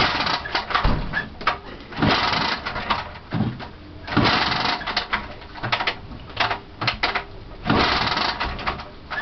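Lambretta SX150 scooter being kick-started over and over: about four kicks, each a rushing burst as the two-stroke single turns over, with clanks and clicks between them. The engine does not fire, because the ignition is not switched on.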